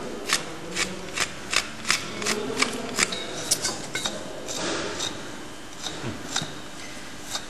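Hoof knife paring the horn of a cow's hoof: a run of short, sharp cutting strokes, about two to three a second, thinning out after about four seconds.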